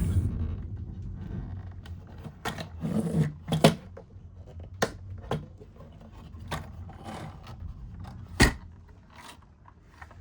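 A series of scattered clicks and knocks from objects being handled, over a low steady rumble; the sharpest knock comes about eight seconds in.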